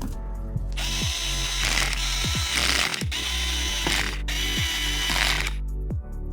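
Electronic background music with a steady deep bass and a kick drum falling in pitch about once a second. From about a second in until shortly before the end, a bright buzzing whir sits over it.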